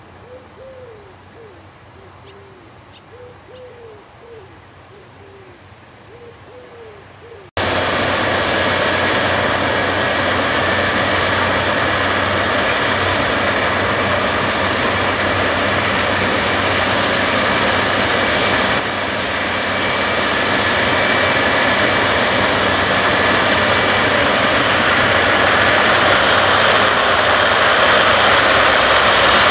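Faint repeated cooing calls of a bird for the first several seconds, then a sudden cut to the loud, steady running of John Deere X9 combine harvesters cutting wheat, an engine drone under a whine from the machine, growing slightly louder near the end.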